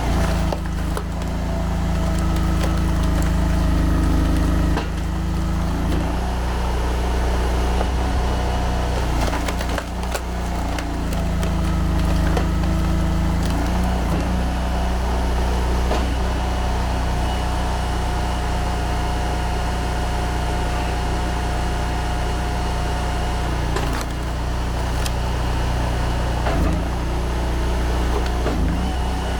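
Honda GX800 V-twin engine running a box-wedge log splitter, its note shifting several times as the hydraulics take load, with wood cracking and splintering as logs are split.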